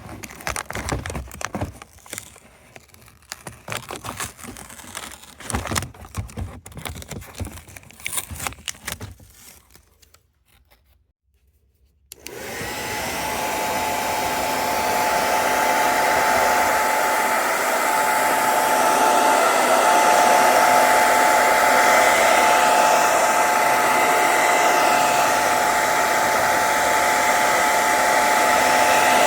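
Irregular clicks and scrapes of things being handled, a short pause, then a hand-held hair dryer switches on about twelve seconds in and runs steadily with a constant whine.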